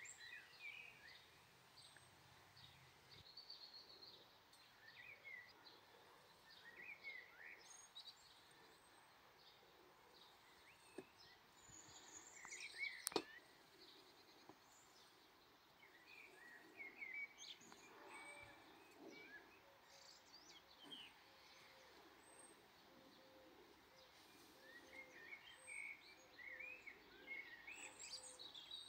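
Faint outdoor birdsong: scattered short chirps and twitters from small birds over a low background hiss, with a single sharp click about thirteen seconds in.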